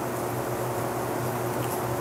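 Steady low hum with an even hiss over it: constant room background noise with nothing happening.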